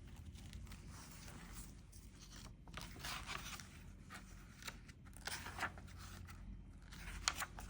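Faint rustling and scraping of paper as a book's pages are handled, with a few light clicks near the end.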